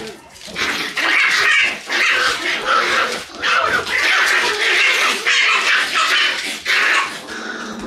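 Shiba Inu puppies yapping and growling in a long run of loud bursts as they play-fight.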